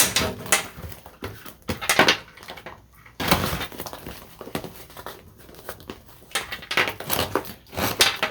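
Packaging being pulled at and torn open by hand: irregular crinkling and tearing with sharp crackles, louder for a stretch about three seconds in.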